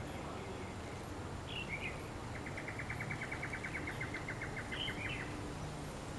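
Small birds calling outdoors: a short chirp about one and a half seconds in, then an even trill of about eight quick notes a second lasting some three seconds, with another chirp near its end, over a steady low background rumble.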